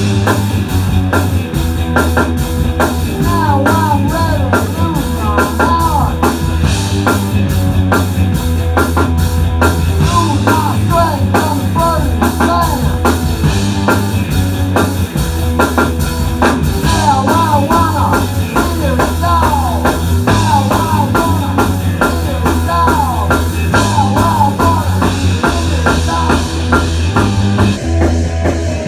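A rock band playing live: electric guitars and a drum kit, loud and continuous.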